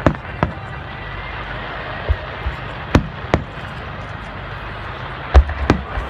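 Aerial firework shells bursting: a string of sharp bangs at irregular intervals over a steady background rumble, the loudest a little past five seconds in.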